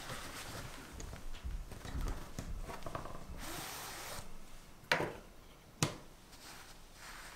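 Parchment paper rustling and crinkling as it is rolled tightly around a roll cake and drawn taut with a metal ruler, with a longer hissing slide about three and a half seconds in. Two sharp taps come a little under a second apart, about five seconds in.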